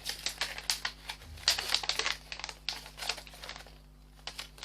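Paper instruction leaflet rustling and crinkling as it is unfolded and handled, in quick irregular rustles that ease off briefly near the end.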